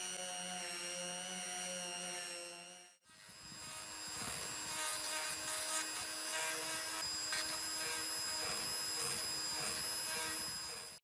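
An electric power tool's motor running steadily with a whine. It cuts off abruptly about three seconds in, then comes back up at a slightly different pitch.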